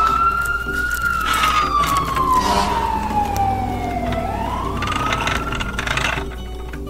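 Siren wail for a toy fire truck: one slow rise, a long fall and a rise again, with a few short bursts of noise along the way.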